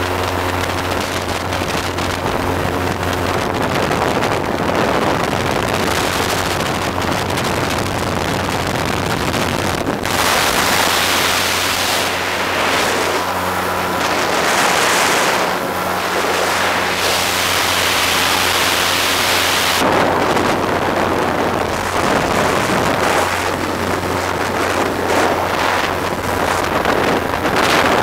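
Wind buffeting the microphone during a towed flight, growing louder and harsher for about ten seconds in the middle, over a steady low engine hum.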